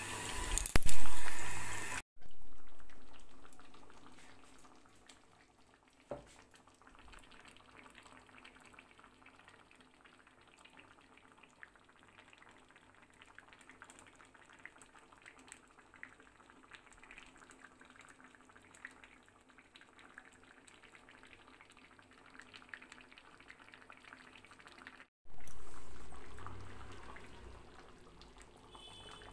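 Potato curry cooking in a pot. About two seconds in, a loud sizzle and rush of liquid, as water goes into the hot spiced potatoes, fades over a couple of seconds. Then the curry simmers with faint bubbling and small pops, and a second loud burst of bubbling near the end fades away the same way.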